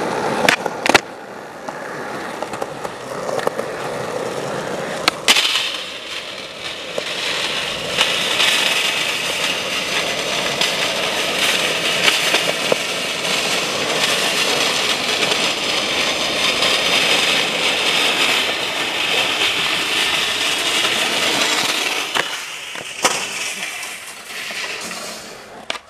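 Skateboard wheels rolling on rough asphalt, a steady rush, with sharp board clacks from pops and landings at the start, about five seconds in and near the end.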